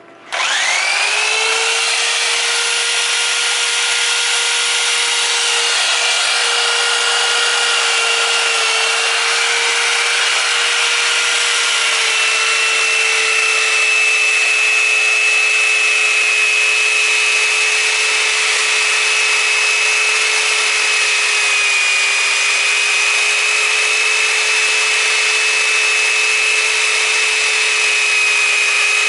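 Buffing machine switched on, spinning up within the first second, then running with a steady whine while a metal part is pressed against its sewn denim wheel charged with tripoli compound, giving a continuous rubbing hiss.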